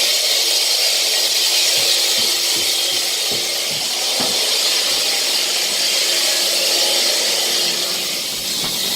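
Power tool working the concrete floor in a drain-line excavation, a loud steady grinding hiss with a few knocks about two to four seconds in.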